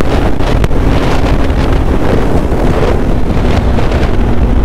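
Heavy wind rush on an action-camera microphone on a moving Kawasaki Z900 motorcycle. The engine's steady note is faintly audible under the wind, easing slightly lower in pitch partway through.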